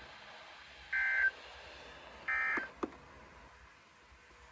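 Emergency Alert System end-of-message data bursts: short two-tone electronic bursts about a second apart. The tail of one falls at the very start and two more follow, marking the end of a broadcast special marine warning. A couple of clicks follow, then faint hiss.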